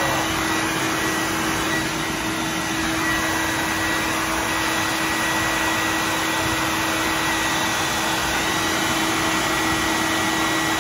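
Wet/dry shop vac running steadily, a loud rushing noise with a constant motor whine, picking up the grease and water spilled across the floor.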